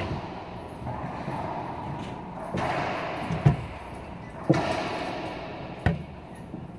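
Racquetball rally: sharp smacks of racquet on ball and ball off the walls, each ringing in the enclosed court. There are four hits, the loudest about three and a half, four and a half and six seconds in.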